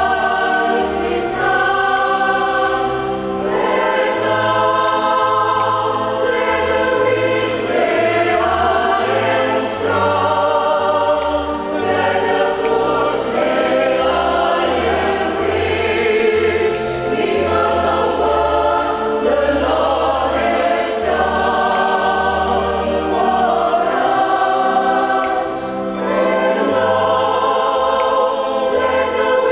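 Church choir singing a hymn in several parts, accompanied by an electronic organ holding sustained low bass notes beneath the voices.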